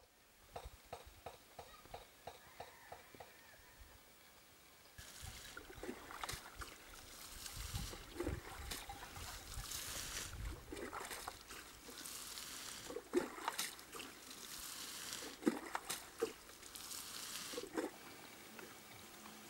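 Water trickling and sloshing, with irregular splashes, from about five seconds in; before that, a short run of soft, regular ticks.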